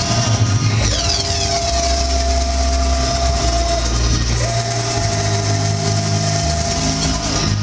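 FLORA wide-format inkjet printer at work: the print-head carriage makes two passes across the banner, each with a steady motor whine. There is a short pause between them, about four seconds in, as the carriage reverses.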